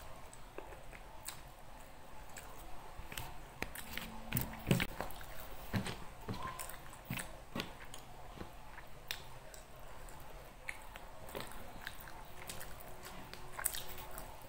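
A person chewing and biting mouthfuls of nasi Padang (rice with beef rendang) close to the microphone, with irregular sharp mouth clicks throughout.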